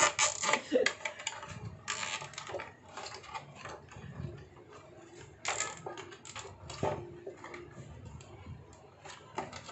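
Black plastic motorcycle front fender being handled and rubbed by hand: irregular clicks, light knocks and scraping scuffs, loudest near the start and again around the middle.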